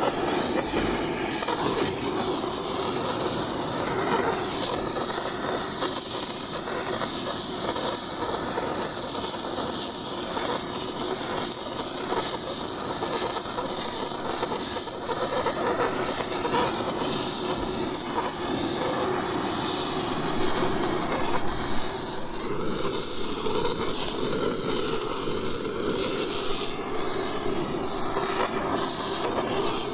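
Oxy-acetylene torch flame hissing steadily.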